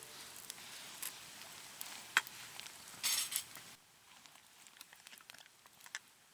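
Food sizzling in a pan, with a few sharp clinks of a metal utensil or cookware. The sizzle stops suddenly a little under four seconds in, leaving faint ticks.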